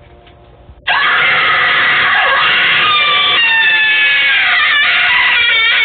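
A creepy Halloween prank doorbell's scream effect, set off by the button press. A loud, sustained shriek starts suddenly about a second in, with several wailing pitches sliding down through it.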